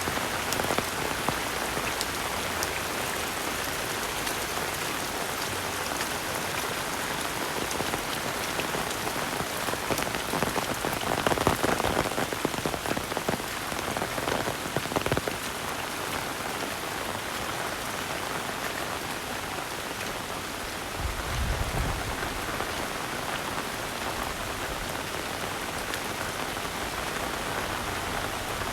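Heavy rain falling steadily, with a hiss of rain hitting surfaces and the patter of drops. For a few seconds near the middle it gets louder, with sharper drips. About three-quarters of the way through there is a brief low rumble.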